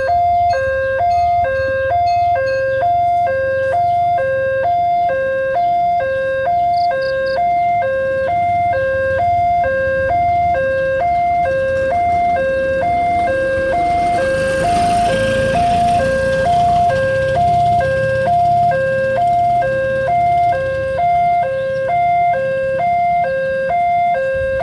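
Railway level-crossing alarm sounding its fast two-tone warning, a rapid even alternation between two pitches. A rumble and hiss of something passing swells and fades about midway.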